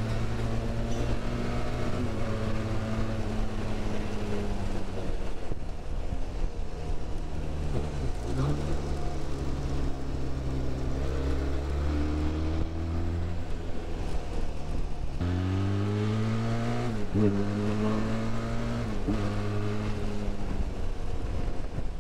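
Benelli TRK 502's parallel-twin engine pulling along a winding road. The revs rise and fall as it works through the gears, with a sharp dip about eight seconds in and several quick shifts and blips in the second half.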